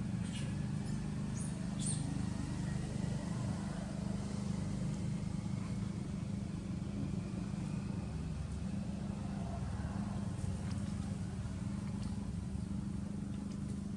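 Steady low drone of a running motor-vehicle engine, with a few faint clicks in the first two seconds.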